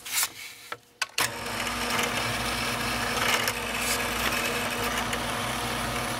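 Drill press motor running steadily with a constant hum, switched on or cut in suddenly about a second in, while 13/64 inch holes are drilled in Baltic birch blanks. A few light wooden clicks from the board being set in place come before it.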